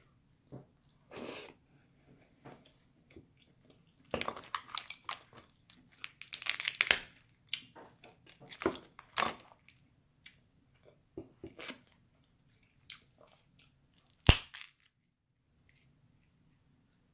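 Cooked crab legs being cracked and the shell pulled apart by hand: a run of crunching and snapping that is busiest between about four and ten seconds in, then one sharp, loud crack near the end.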